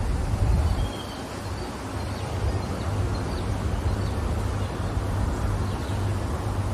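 Outdoor garden ambience: a low rumble of wind on the microphone, with a few faint, short bird chirps.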